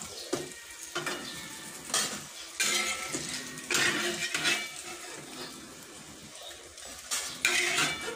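A spatula scrapes and knocks against a non-stick frying pan in several irregular bursts as fried meatballs are turned and pushed through hot oil, over a faint sizzle of frying.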